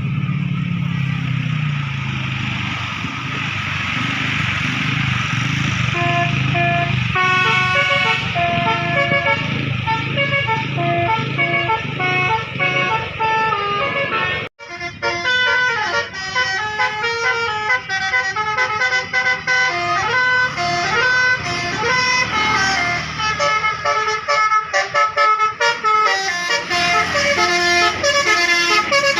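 Bus engine and traffic rumble, then from about six seconds in a bus's basuri telolet horn plays a tune of quickly changing notes. The tune breaks off for an instant midway and carries on.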